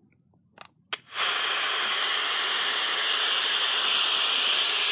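Two short clicks, then the Tecsun PL-606 world band radio's speaker comes on with a steady static hiss, the noise of the FM band tuned between stations.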